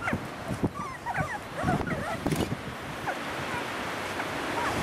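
Three-week-old springer spaniel puppies whimpering and squeaking: many short, high squeaks that bend up and down in pitch, over wind rustle on the microphone.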